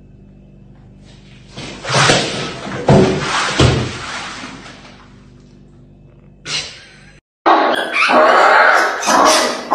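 A potted plant knocked off a windowsill by a cat crashes to the floor, with a clatter and three heavy thuds about two to three and a half seconds in. Near the end, after a cut, a loud rough animal sound comes from a kitten holding a mouse.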